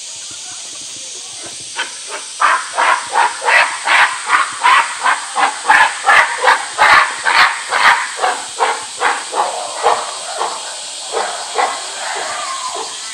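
Western lowland gorilla screaming in anger: a rapid series of harsh screams, about three a second, starting about two seconds in and tapering off near the end.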